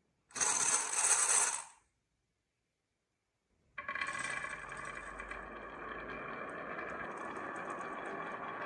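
Marbles on a marble run: a short burst of clattering of about a second and a half, then, after a gap, a steady rolling rumble with a ringing tone as the marbles run down the track.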